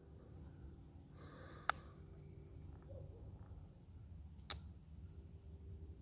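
Two sharp clicks about three seconds apart: a single-blade slipjoint pocketknife's blade snapping against its backspring at the half stop. Under them runs a steady high chirring of insects.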